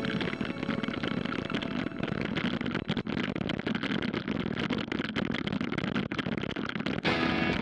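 Road bicycle rattling over wet cobblestones: a dense, irregular clatter of small knocks and jolts from the bike and its camera mount. Music cuts back in near the end.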